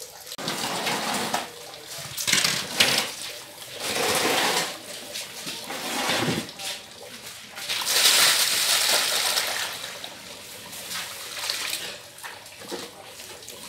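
Water and freshly caught squid sloshing and splashing in tubs as the catch is handled, in irregular bursts with the loudest stretch about eight to nine seconds in.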